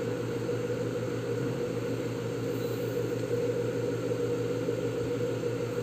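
A steady low hum from a small motor running, over a faint hiss, with no change in pitch or level.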